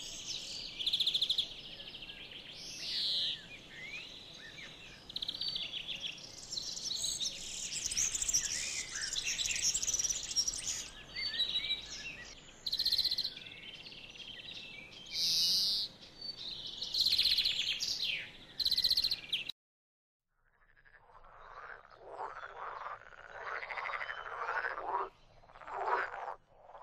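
Songbirds singing with many high chirps and trills, cut off abruptly about two-thirds of the way through. After a second of silence, a chorus of croaking frogs builds up.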